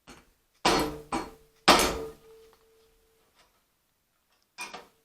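Hammer striking a punch to seat a domed Welch plug in the 1969 Rokon's carburetor body, swelling the plug tight. A light tap, then three hard metallic strikes about half a second apart, the last one ringing on briefly, then one more strike near the end.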